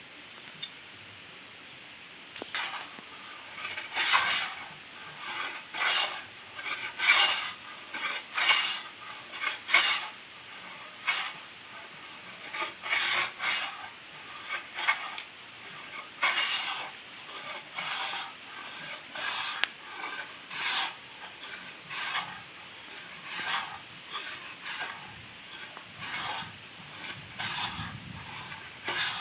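Manual wooden hand plane shaving wood: a series of short rasping strokes, roughly one a second, starting a couple of seconds in.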